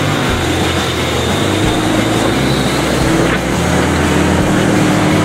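Land Rover Discovery II TD5's five-cylinder turbodiesel engine running under load as the 4x4 crawls through mud on a woodland track, its note shifting up and down with the throttle.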